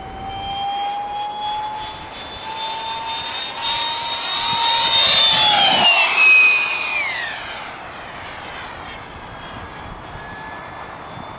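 Electric ducted fan of a Yellow Aircraft Stingray model jet whining at high speed in a low fly-by. The whine climbs a little in pitch and grows louder as it approaches, is loudest about six seconds in, then drops in pitch as it passes and fades away.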